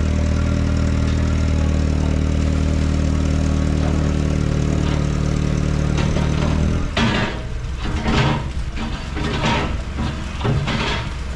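Locomotive machinery running at a standstill with a steady low drone for the first seven seconds or so. After that the drone breaks up into irregular bursts of hiss-like noise.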